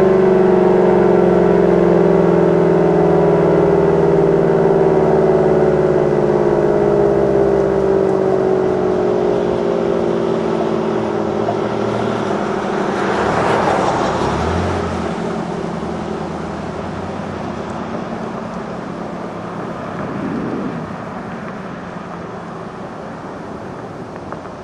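Allertor outdoor warning siren winding down at the end of a test, its tone sliding slowly lower and fading. A car passes by about halfway through.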